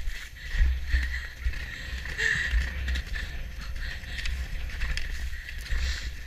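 Wind buffeting the microphone of a camera on a galloping horse's rider, a heavy gusting rumble, with the irregular knocks of hooves on turf.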